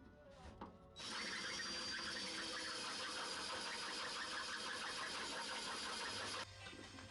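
Cordless drill running under load, reaming out holes in a metal bracket. It starts about a second in, runs steadily with a high whine, stops briefly near the end and starts again.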